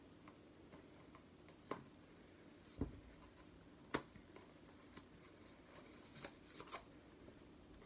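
Hands working at a parcel to get it open: a handful of short, sharp clicks and taps, the loudest about four seconds in, with a few lighter ones near the end, over near silence.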